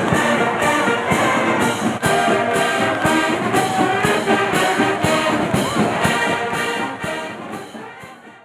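Brass marching band playing, with a steady beat of drum and cymbal strokes; the music fades out over the last two seconds.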